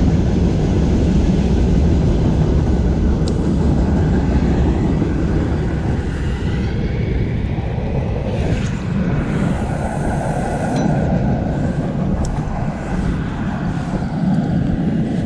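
Strong wind buffeting the microphone in a loud, steady rumble, with a faint wavering whine in the middle.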